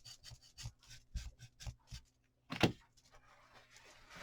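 Light rubbing strokes of antique wax being worked onto a small wooden crate, about four strokes a second. The strokes stop about two seconds in, and after a brief silence there is one louder short sound.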